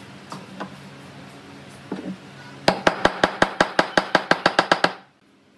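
Rapid, even run of about sixteen sharp clicks from a hand tool working the metal headset fitting of a wooden bicycle frame, about seven a second for about two seconds, then stopping abruptly.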